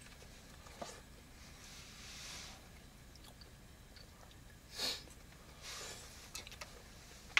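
Quiet eating: chewing fried potatoes, with a few light clicks of forks on a frying pan and a couple of short breathy sounds, the louder one about two-thirds of the way through.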